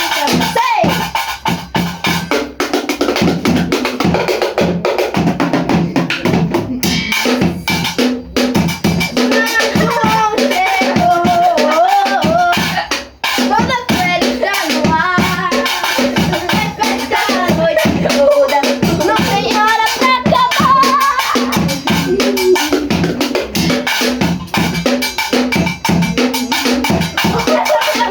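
Live band playing São João (festa junina) music: a melody line over a steady drum beat.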